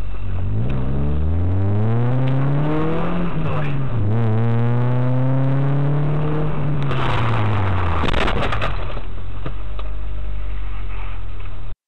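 A car engine revving hard under acceleration, its pitch climbing, dropping briefly about three seconds in and climbing again, then falling away. Around seven to eight seconds comes a burst of harsh noise with several sharp cracks, and the sound cuts off abruptly near the end.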